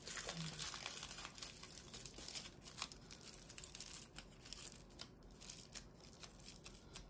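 Aluminium foil crinkling and crackling as hands wrap and twist it tightly around a flower stem, in quick irregular rustles.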